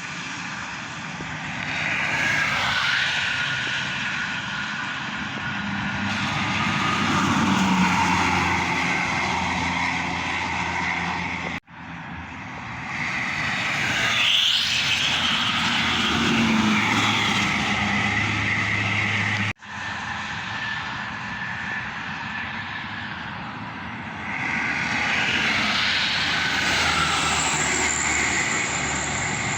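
Buses and other highway traffic passing at speed on a toll road: a steady engine, tyre and wind rush that swells several times as vehicles go by. It breaks off abruptly twice where the footage is cut.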